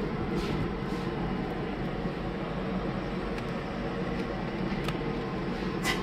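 Steady low background rumble, like machinery or traffic noise, with a few faint clicks; the loudest click comes near the end.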